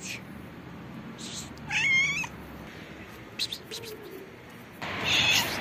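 Hungry stray cats meowing for food: one wavering meow about two seconds in, then a louder, rougher call near the end.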